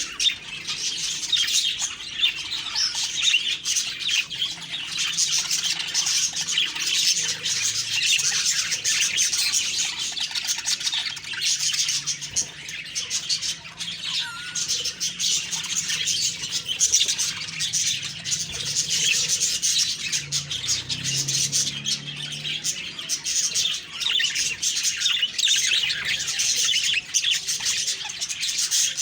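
Budgerigars chirping and chattering continuously, a dense stream of rapid high chirps with no pause.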